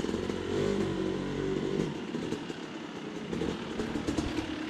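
Dirt bike engine running at low speed, the revs climbing about half a second in and easing back after a couple of seconds, as the bike is ridden slowly over sandstone ledges.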